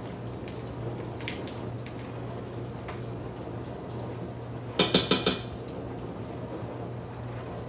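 Four quick metal clinks about five seconds in, a utensil knocked against the rim of a saucepan on the stove, over a steady low hum.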